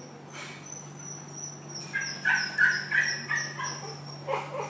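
Small dog yipping: a quick run of about six short, high-pitched yips starting about two seconds in, then a few more near the end.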